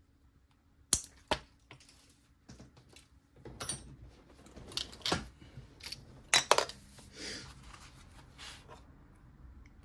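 Leatherworking tools and leather being handled on a workbench: a couple of sharp clicks early on, then a busier run of taps, knocks and rustling, with two loud clicks about six seconds in.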